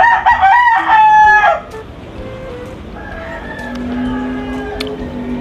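A rooster crowing loudly in a multi-part call lasting about a second and a half. A fainter, drawn-out crow follows from about three seconds in.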